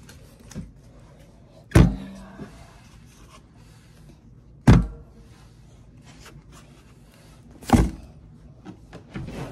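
Cardboard shipping boxes being set down and stacked: three heavy thuds about three seconds apart, with light knocks and cardboard rustling between them.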